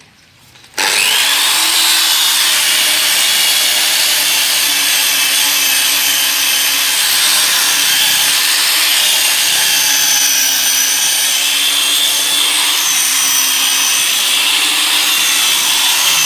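Electric rotary car polisher starting about a second in, its whine rising as it spins up, then running steadily with the pad rubbing on the car's painted body panel as it buffs out dull, hazed paint.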